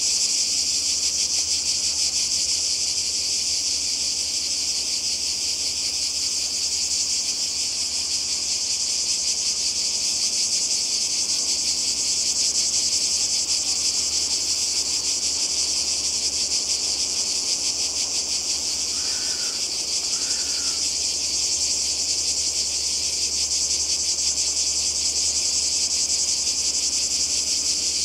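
Cicadas buzzing in a dense, steady, shrill chorus, with two brief faint sounds about two-thirds of the way through.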